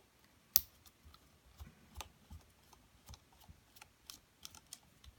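Scattered small, sharp clicks and taps from working small screws out of a PS3 Eye camera's plastic housing, with one louder click about half a second in.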